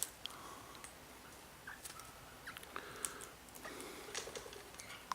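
Faint, scattered bird chirps and soft chatter, with small sharp clicks in between.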